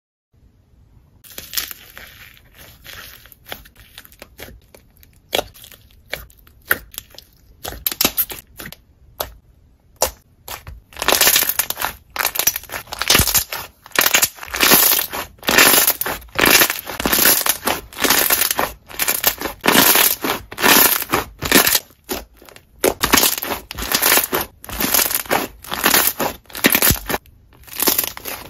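Pink slime dotted with small beads, pressed and squished by hand, giving a rapid run of crunchy crackles and pops. The pops are faint at first and grow loud and dense about a third of the way in.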